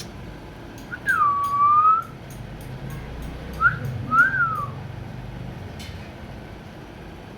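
Parrot whistling: one whistle of about a second that dips and then slowly rises, then two short up-and-down whistle notes, with faint light clicks in between.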